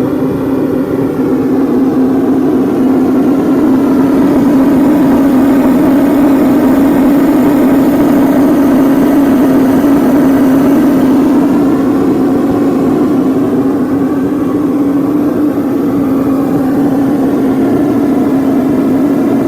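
Waste oil burner test rig running: the blower fan from an old oil burner drives air past a syphon jet into the burner tube, giving a loud, steady drone over a rushing noise. The burner holds steady without flaming out.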